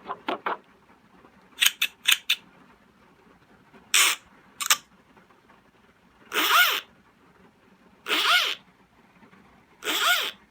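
A run of short sound-effect samples played back one after another: the last few quick clucks, a handful of sharp clicks, two short noisy bursts, then a zipper being zipped three times, each zip about half a second long and repeating about every two seconds.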